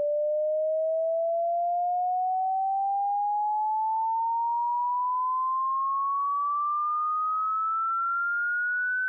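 A single pure sine tone slowly and steadily rising in pitch, from a middling tone to a higher one: a hearing-test frequency sweep.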